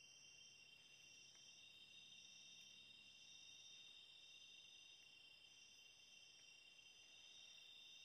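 Faint, steady chorus of night insects such as crickets, a continuous high-pitched trill at two pitches.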